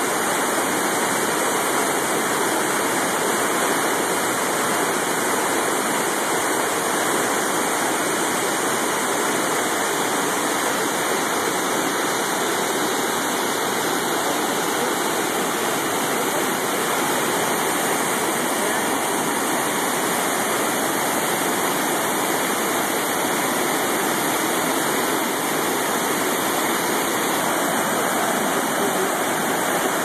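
Whitewater river cascade rushing steadily: a constant, even rush of water pouring over rapids.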